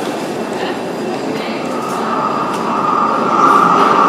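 Paris Métro train running, with a rumble of wheels on rail and a high squeal that builds and gets louder from about halfway through.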